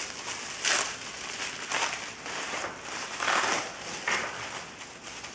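Packaging being rummaged through and pulled open by hand: crinkling, rustling handling noise in several short bursts about a second apart.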